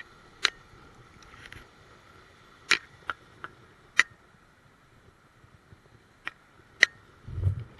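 About seven sharp taps and clicks at uneven intervals, then a duller low thump near the end, heard through a waterproof camera housing.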